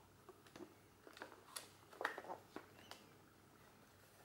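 Faint, irregular clicks and taps of hands handling a Bauer S 204 XL Super 8 camera body as it is turned over, the loudest about two seconds in.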